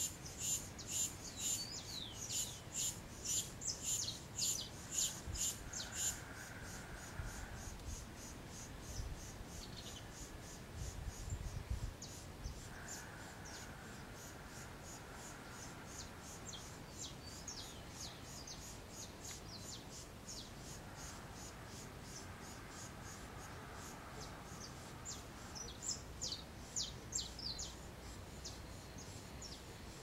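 Countryside ambience of insects and birds: a rhythmic series of short high chirps, about two a second, for the first six seconds or so, then scattered quick high chirps falling in pitch through the second half. A brief low rumble comes about eleven seconds in.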